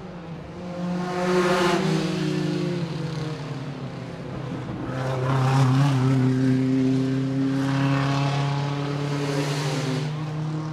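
Small-engined vintage production sports cars racing past one after another. Each engine note swells and fades in turn, and the loudest pass comes about halfway through.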